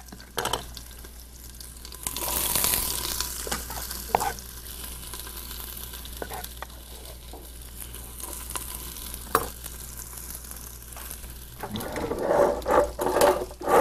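Knife chopping mushrooms on a wooden cutting board in scattered knocks, over a soft sizzle of diced onion sweating in olive oil in a soup pot. Near the end the sizzling and clatter get louder as the mushrooms go into the pot.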